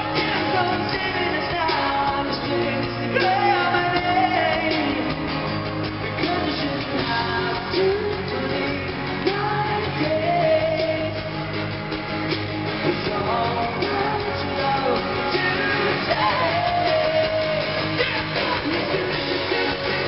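Live pop-rock band playing a song, with a lead voice singing over guitars and drums, heard through the arena's amplification from among the crowd. The recording is dull, with no treble.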